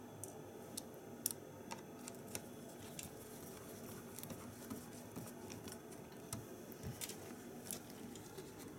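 Scattered light clicks and taps as small plastic and metal parts of a Saab SID display are handled and a Torx screwdriver drives small screws into its circuit board.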